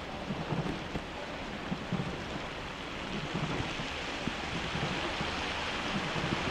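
Steady hiss of rain and wet pavement, with irregular low rumbling knocks. The hiss grows brighter from about halfway through.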